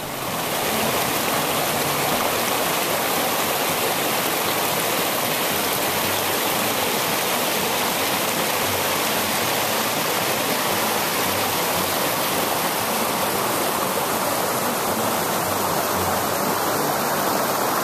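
River water rushing over and between rocks through a small cascade, a steady, unbroken rush.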